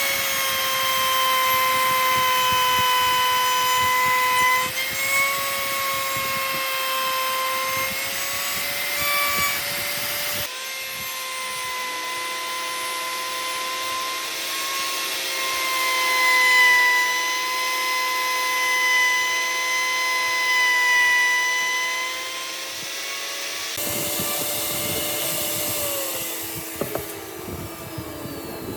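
An electric power tool working wood: a steady motor whine over a rough hiss of the cutting or sanding, changing abruptly about ten seconds in and again a few seconds before the end. Near the end the pitch slides down as the motor slows.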